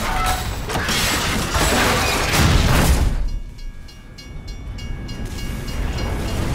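Derailed passenger train carriage grinding and scraping along the rails, a loud, dense rush of noise over a low rumble. About three seconds in it drops away and a level-crossing bell rings in fast, even strokes, while the rumble builds again near the end.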